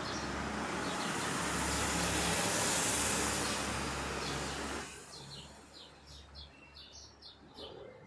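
A passing vehicle: a rush of road noise with a low rumble that swells and then drops away about five seconds in. After it, birds chirp in short, repeated calls.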